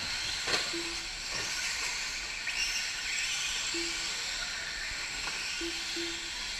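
Electric 4WD short-course RC trucks racing on a dirt track: a steady high hiss and whine of motors and tyres, with whines rising and falling as they accelerate and brake. A few sharp knocks and four short low beeps stand out.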